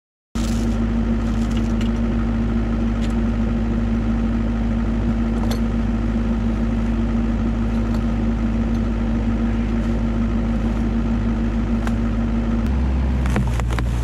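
Kubota KX121-3 mini excavator's diesel engine running steadily, with a few light clicks and knocks over it. Near the end the engine's low note shifts lower.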